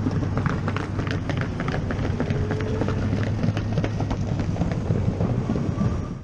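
Motorcycle riding at road speed heard from a helmet camera: a steady low drone from the bike under rushing wind, with wind crackling and buffeting on the microphone. The sound drops away abruptly at the very end.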